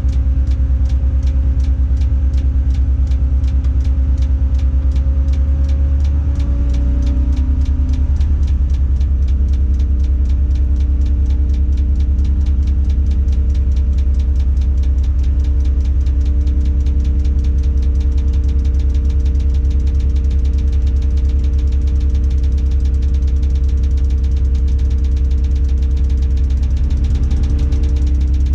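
Diesel engine of a Tadano 180G-5 crane running steadily, heard from inside the operator's cab, with a fast, even ticking over it. The engine note shifts about six to eight seconds in.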